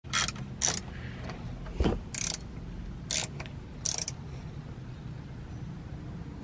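Socket ratchet clicking in short bursts, about six strokes over the first four seconds, over a steady low hum.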